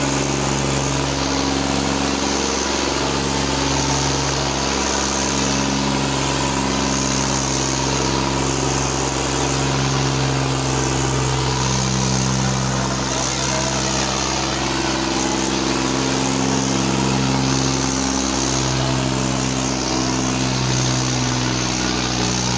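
Modified Swaraj 855 tractor's three-cylinder diesel engine running at steady high revs under heavy load as it pulls forward through soft dirt, with crowd voices behind it.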